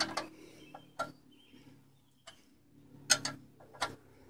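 A wrench working the oil-pan drain bolt back in: a handful of sharp clicks at irregular spacing, some in quick pairs.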